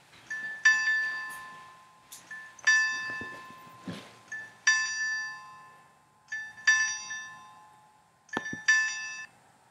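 A restaurant website's new-order alert chime, a two-note electronic ding-dong repeating about every two seconds, five times. It cuts off shortly after the 'Valider' button is pressed, which accepts the order and silences the alarm.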